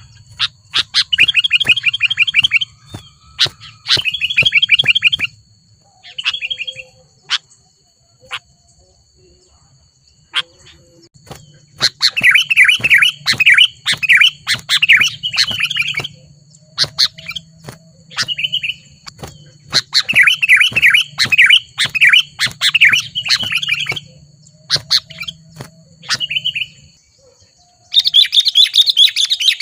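Sooty-headed bulbul (kutilang) singing busily in rapid chattering bursts of one to four seconds with short pauses between, with scattered sharp clicks and a faint steady high tone underneath.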